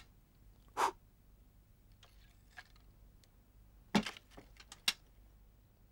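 Sparse cartoon sound effects: a short noisy swish about a second in, then a sharp knock about four seconds in as the clay figure falls over the paint bucket, and a second sharp click just under a second later.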